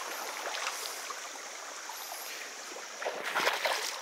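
Shallow creek water running over stones, with the splashing steps of a hiker wading across in trail shoes, loudest about three seconds in.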